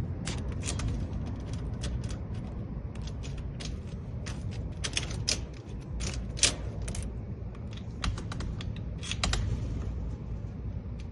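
A newly cut key being worked and jiggled in a rekeyed residential door lock: a run of irregular, sharp metal clicks over a low steady rumble. The key only barely operates the lock.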